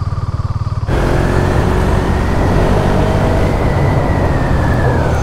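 KTM Duke 390's single-cylinder engine running as the motorcycle rides along, with wind rushing over the microphone. About a second in, the pulsing engine note gives way to a steadier, denser sound with more wind.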